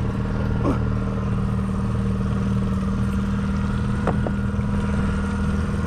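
Outboard motor running steadily at trolling speed, an even drone, with a single click about four seconds in.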